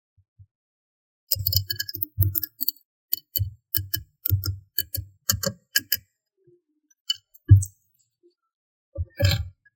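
Slime being squished and stretched by hand, making sticky clicks and pops about three a second for several seconds, then one louder pop and a short crackling cluster near the end.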